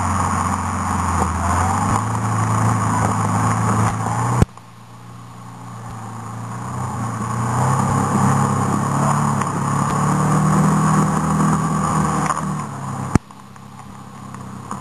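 Off-road vehicle engine running under load on a climb, heard from inside the cabin, its pitch rising slowly as it revs up. A sharp click comes about four seconds in and again near the end, each time followed by a sudden drop in engine level that builds back up.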